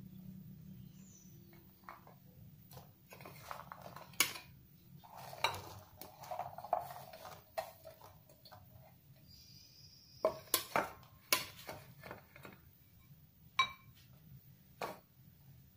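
Ceramic mortar and pestle (cobek) and an enamel plate knocking and clinking as chilies and shallots are tipped from the plate into the mortar. Scattered sharp knocks, with a quick cluster of several just past the middle.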